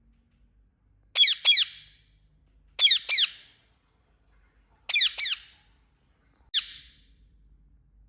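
A parrot calling: short, sharp, downward-sweeping chirps in quick pairs, three pairs about two seconds apart and then a single chirp near the end, each trailing off briefly.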